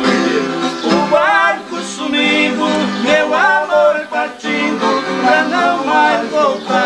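A man singing with wavering, gliding held notes while playing an acoustic guitar.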